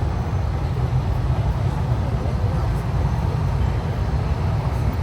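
Steady low rumble and hiss of a busy airport terminal hall, with a faint murmur of voices.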